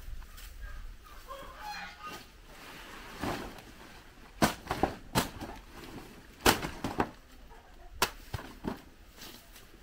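Chickens clucking, with a brief call early on and a run of sharp knocks a few seconds in, about seven in all.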